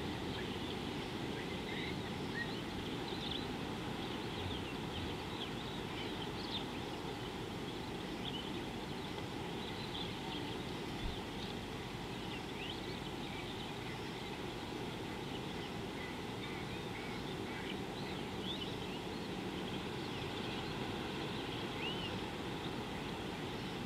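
Outdoor ambience of scattered bird chirps and short whistles over a steady low background rumble.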